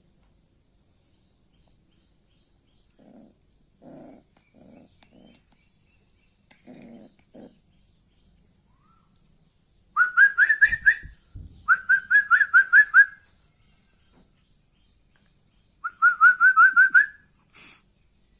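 Animal calls: soft, short low grunts, then three quick runs of loud, high, rising chirps, about six or seven to a run, each run lasting about a second.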